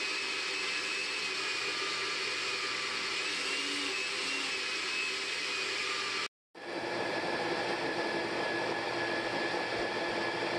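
Countertop blender motor running steadily with a whine on top, mixing cake batter. The sound cuts out for a moment about six seconds in, then the blender runs on with a lower, steadier whine.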